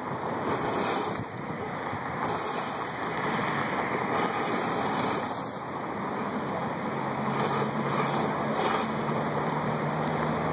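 Steady rushing noise. A low steady hum of a few pitches comes in about seven seconds in and fades out near the end.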